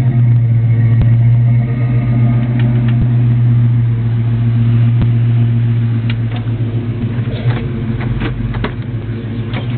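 1995 Ford Mustang SVT Cobra's V8 idling steadily with a deep, even hum.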